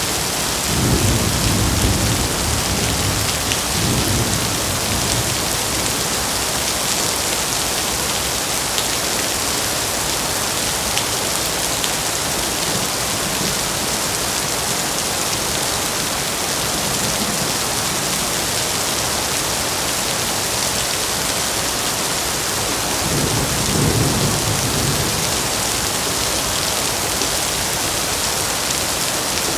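Heavy rain pouring steadily with a dense hiss, and rumbles of thunder about a second in and again near the end.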